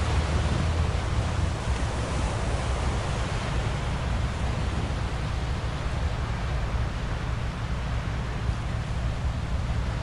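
Steady low rumble under a rushing wash of wind and water, heard close beside a passing container ship.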